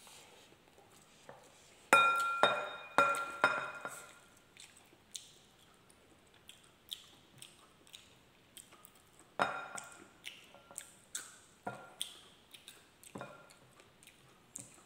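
Ceramic bowls clinking with a short ringing tone, in a cluster of clinks about two seconds in and again near ten seconds. Small clicks and smacks of eating come in between.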